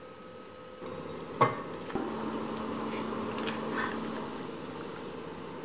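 A saucepan of sauce simmering on an induction hob with a steady hiss, and a single sharp clack about a second and a half in as peeled taro is handled with metal tongs at the pot.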